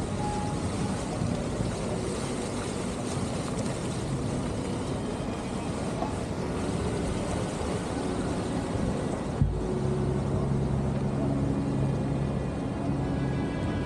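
Steady engine rumble and water rush of a vaporetto waterbus under way. A single sharp knock comes about two-thirds in, and after it soft background music with held low notes rises over the noise.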